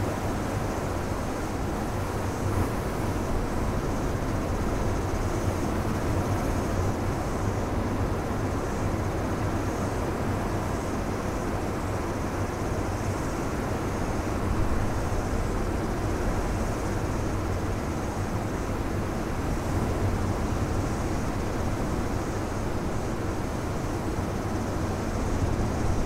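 Ocean surf breaking and washing over a rocky shore: a steady, deep wash of waves with no pause, swelling slightly near the end.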